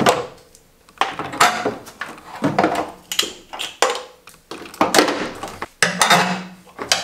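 Plastic and metal car parts being handled and knocked together: a series of irregular clicks, knocks and clatters with short rings.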